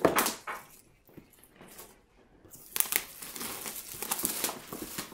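Plastic shrink wrap crinkling as it is pulled off a cardboard game box: a short burst at the start, a quiet pause of about two seconds, then steady crinkling through the second half.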